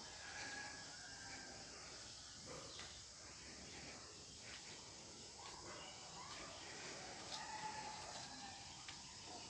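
Faint outdoor ambience with a few brief, scattered high-pitched calls.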